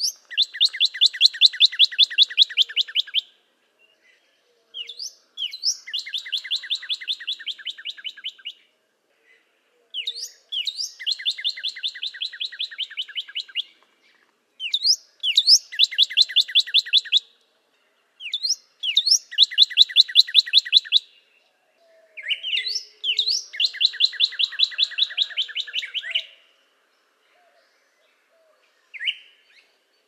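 Northern cardinal singing: six phrases with short pauses between, each opening with a few quick slurred notes and running into a fast trill of rapidly repeated notes.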